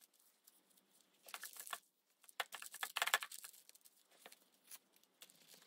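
Faint rustling and light tapping of torn paper strips being handled and laid onto a journal page, in two short spells of rustles about a second apart.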